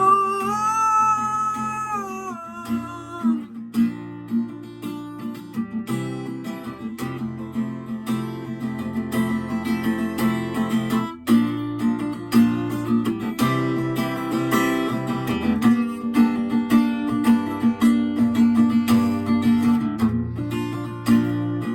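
Acoustic guitar playing an instrumental interlude in a hymn, strummed more fully from about halfway. A sung note is held and bends over the first three seconds before the voice drops out.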